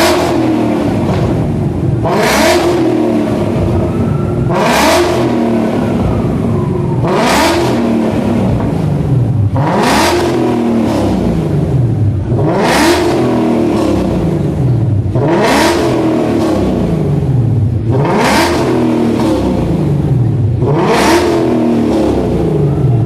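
Ford Mustang engine revved over and over, about every two and a half seconds, each rev climbing and dropping back, with a short harsh rasp at the top of each rev.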